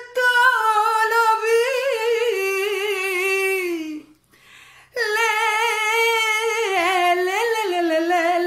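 A woman singing a traditional Asia Minor Greek song unaccompanied, drawing out long vowels with rapid wavering ornaments. The held line slides downward, breaks off for about a second near the middle, then comes back in.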